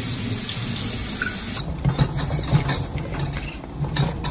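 Kitchen tap running into a bowl as vegetables are rinsed, shut off about one and a half seconds in. Then a few light knocks and clatters of cookware being handled.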